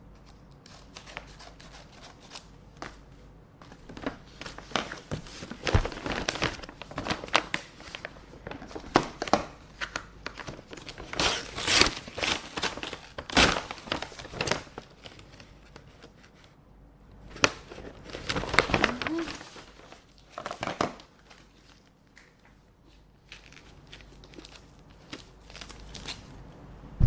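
Paper envelopes and letters being handled and opened: crinkling, rustling and tearing paper with sharp clicks, busiest through the middle and quieter for the last few seconds.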